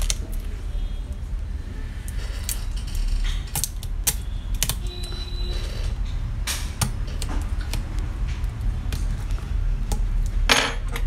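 Irregular small clicks and taps of metal tweezers and a pry tool working on a laptop's internal connectors and casing, over a steady low hum. A louder, brief scrape comes near the end.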